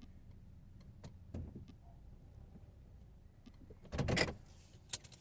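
Inside a parked car: a faint low rumble with a small click about a second and a half in, then a short loud knock or rustle about four seconds in, as things in the car are handled.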